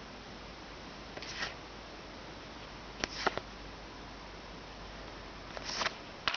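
Trading cards and a booster-pack wrapper being handled: a few short rustles, including a pair of sharp clicks about three seconds in, over a steady low hiss.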